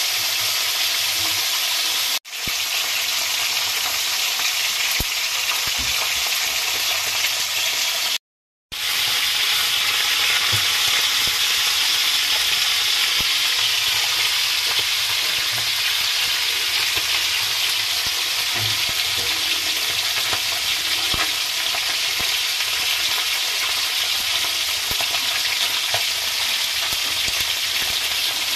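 Pieces of fish shallow-frying in hot oil in a wok: a steady sizzle with scattered faint crackles. The sound drops out briefly twice, about two seconds and about eight seconds in.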